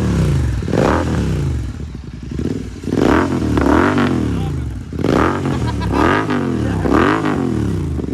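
Royal Enfield Continental GT650's parallel-twin engine, breathing through a Red Rooster aftermarket exhaust with its dB killers removed, revved in a series of quick throttle blips. Each blip rises and drops straight back, with a brief lull about two seconds in.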